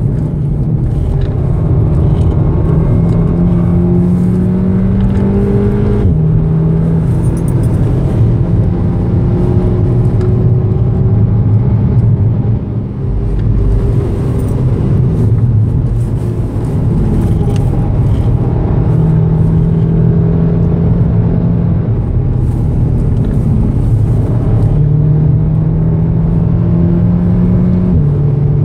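2014 VW Golf VII R's turbocharged 2.0-litre four-cylinder accelerating hard, heard from inside the cabin over road and tyre roar: the engine note climbs steadily, drops sharply on an upshift from third to fourth about six seconds in, climbs again, and drops on a second upshift into fifth near the end.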